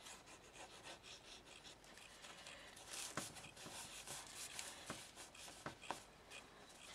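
Faint rubbing of paper and card as the glued card flaps are pressed and smoothed down onto a journal page, with a few light ticks from handling.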